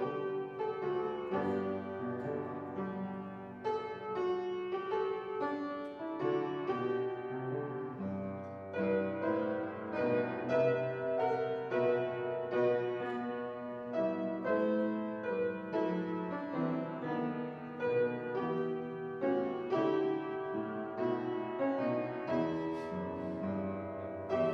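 Solo piano playing a slow, steady piece of many-noted chords and a melody.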